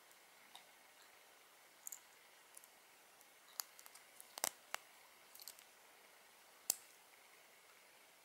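Folding stainless steel keychain scissors being handled and pulled open by hand: faint scattered metal clicks and ticks, the sharpest a pair about halfway through and a single one later.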